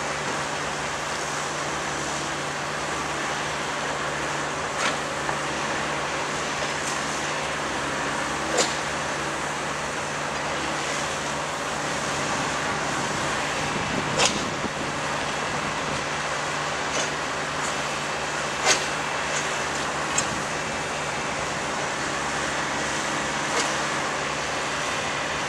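Railroad track-maintenance machinery running steadily during tie replacement, with a handful of short sharp knocks scattered through, the loudest about 14 and 19 seconds in.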